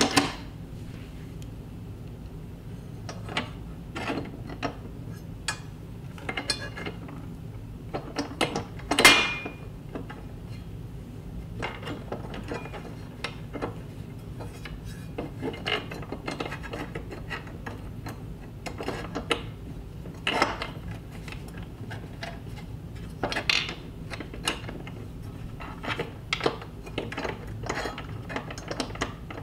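Metal TV wall-mount brackets and hardware being handled and fitted together: scattered clicks, clinks and knocks, the loudest about nine seconds in. A steady low hum runs underneath.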